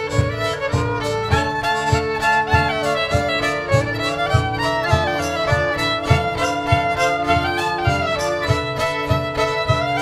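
A live folk band playing a fast dance tune: fiddle carrying a quick melody over a steady held drone note, with bass guitar and a regular pulsing beat.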